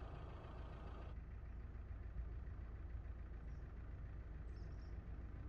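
Steady low outdoor background rumble, with faint short high chirps about three and a half and four and a half seconds in.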